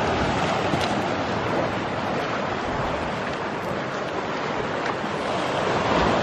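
Lake Superior surf breaking and washing over the rock ledges of the shoreline: a steady, even rushing.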